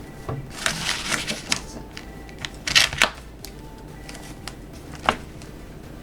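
Rustling and light clicks of a paper-backed adhesive sheet and a jigsaw puzzle being handled, in a few short crinkly bursts, with a sharp click about five seconds in.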